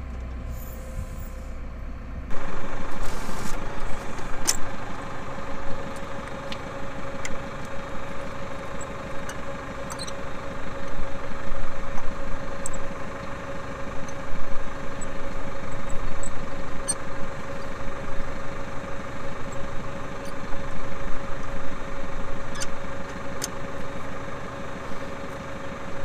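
Tractor engine running; about two seconds in it steps up to a louder, higher steady pitch that holds.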